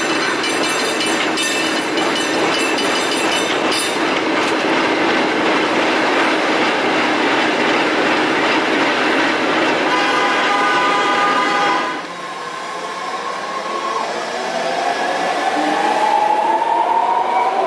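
San Francisco cable car running along its track: a continuous clattering rattle from the car and the cable in the street slot, with a steady high tone for a couple of seconds near the end of that stretch. About twelve seconds in, the sound changes abruptly to a BART train pulling out of a station, its motors giving a rising whine.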